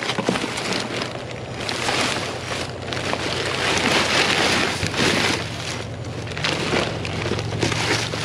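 Plastic bags, clear plastic wrap and cardboard rustling and crinkling as gloved hands dig through trash in a dumpster, in uneven swells that are loudest about halfway through.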